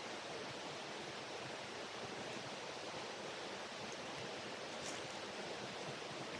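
Running water of a woodland stream by a fish pool, a steady even rush.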